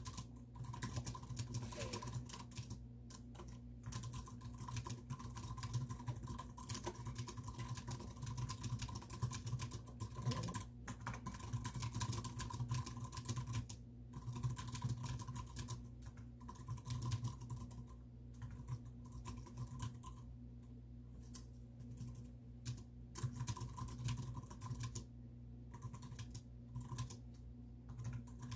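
Fast typing on a computer keyboard, key clicks in quick runs broken by short pauses, sparser and more halting in the last third.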